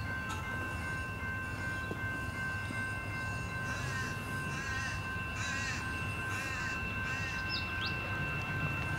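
A crow cawing about four times in the middle, over the low rumble of a distant Tait electric train approaching.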